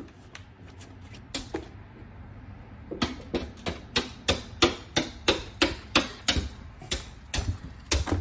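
German Shepherd puppy pawing at a sliding glass door: sharp taps and knocks on the glass, a few spaced ones at first, then a quick run of about three a second from about three seconds in.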